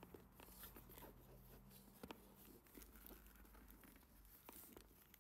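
Very faint handling noise of a canvas-and-leather handbag: scattered soft taps and rustles as hands move its stiff leather strap and flap.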